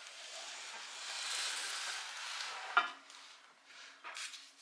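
Loose rust grit and flakes shifting and spilling inside an opened septic aerator air pump, a gritty hiss, with a sharp click just under three seconds in.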